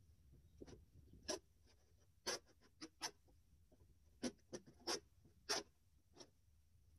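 A small hand tool scraping in short, quick strokes, about ten of them at irregular intervals.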